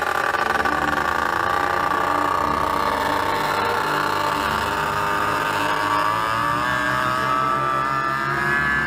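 Paramotor engine running at high power during a foot-launched take-off run. Its pitch sags slightly about halfway through and climbs again near the end.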